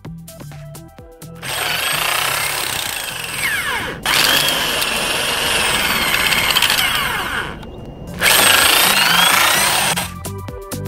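Corded electric drill spinning a screw-type nail extractor that pulls nails out of a wooden pallet board, running in three stretches with short breaks, its whine sliding up and down in pitch as it works. Electronic music plays at the start and end.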